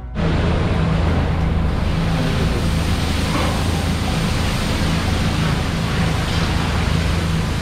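Water poured from a steel bucket splashing into a large, hot, steaming cooking pot, starting a few seconds in. Under it runs a steady low hum and rushing noise.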